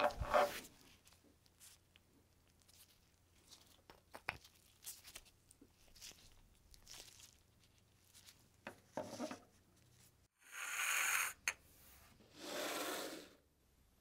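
Gloved hands handling small parts on a tabletop: a rub at the start, scattered light clicks and taps, then two rasping rubs of about a second each near the end.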